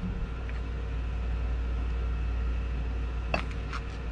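Steady low machine hum in a small workshop, with a few light clicks about three and a half seconds in as a metal plastic injector is handled.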